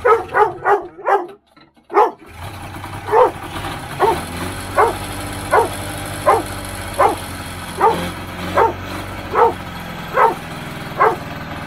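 A dog barks repeatedly, first a quick run of barks and then about once a second, over a freshly rebuilt Polaris TX340 two-stroke twin snowmobile engine on its first start after priming with fuel. The engine cuts out about a second in, catches again about two seconds in and keeps running steadily.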